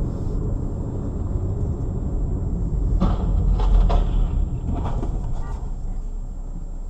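Steady low rumble of a vehicle on the move, with several short knocks and thumps between about three and five seconds in.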